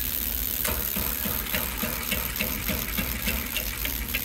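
Steady road and engine noise of a car driving, a low rumble under an even hiss with a few faint ticks.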